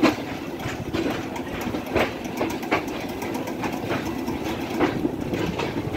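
Passenger train rolling slowly into a station, heard from the coach doorway: a steady running rumble with sharp, unevenly spaced clacks of the wheels over rail joints and points.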